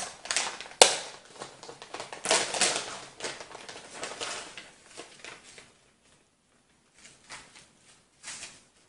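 Clear plastic bag crinkling and rustling as it is torn open and coils of filament are pulled out, with a sharp snap about a second in. The rustling dies away after about five seconds, leaving only a few faint rustles near the end.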